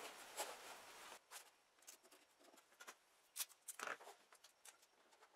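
Near silence, broken by a few faint, scattered soft taps and rustles of hands and sleeves working along the truck's rocker panel.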